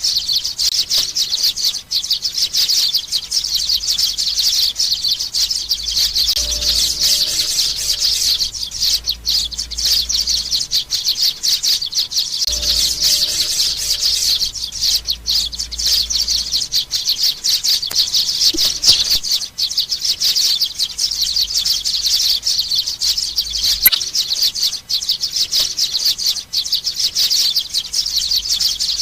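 Young sparrows chirping rapidly and without pause in high-pitched calls. This is the nestling-sparrow call used as a lure to bring sparrows down onto glue traps.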